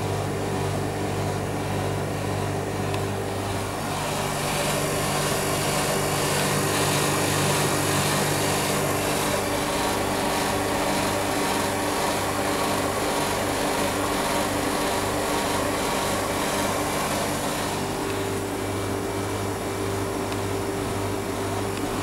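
Freezer condensing unit running: steady electric hum of the refrigeration compressor with the condenser fan's air noise. A louder rushing hiss comes in about four seconds in and eases off near the end.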